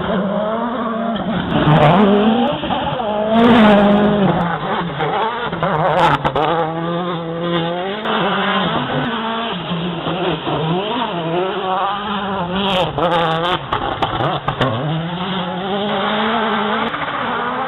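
World Rally Car engine running hard on a gravel stage, its pitch holding high, then dropping and climbing again several times with the gear changes. A few sharp cracks cut through it.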